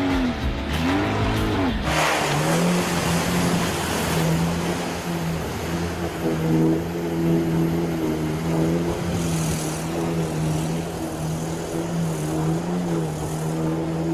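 Lada Niva engine revving up and down, then from about two seconds in held at steady high revs with small wavers in pitch, as the 4x4 pushes through deep water on a flooded track.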